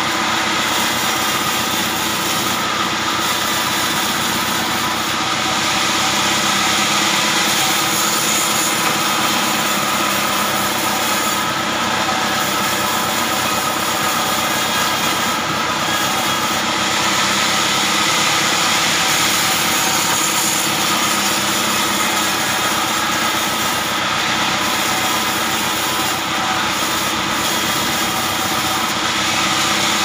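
Band sawmill running steadily while its blade cuts lengthwise through a hard acacia log, a loud continuous machine drone with several steady tones.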